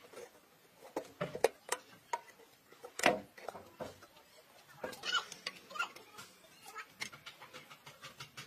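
Irregular sharp metal clicks and clinks of a hand tool working the fittings at the base of a grinding machine's steel hopper, the loudest about three seconds in, with chickens clucking.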